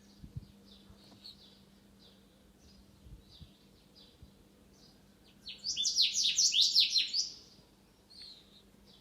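Small songbirds chirping: scattered faint high chirps, then a loud, quick run of falling notes lasting under two seconds just past the middle, followed by a few softer chirps.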